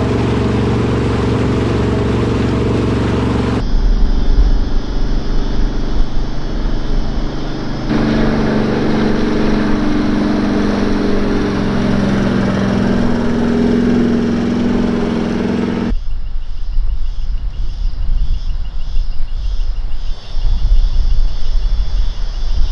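A vehicle engine running at steady revs, broken by abrupt cuts into stretches of low rumbling wind buffeting the microphone.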